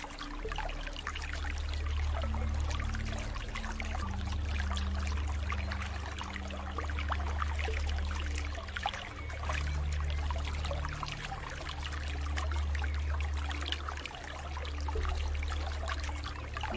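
Water flowing and trickling with many small splashes, over a soft low drone of ambient music whose held notes change every few seconds.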